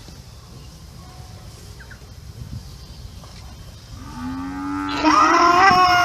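A cow mooing: after a few seconds of faint background, one long moo starts low about four seconds in and turns loud and higher a second later.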